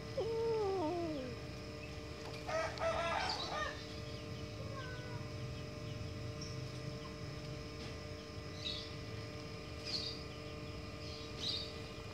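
A kitten gives one meow that falls in pitch, then a rooster crows in the background about two and a half seconds in. Short, faint bird chirps come a few times near the end.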